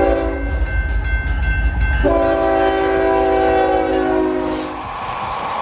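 Diesel freight locomotive air horn: a short blast that ends about half a second in, then a long blast from about two seconds in to nearly five seconds, over the low rumble of the lead locomotives. As the horn stops, wheel and rail noise takes over from the passing intermodal train.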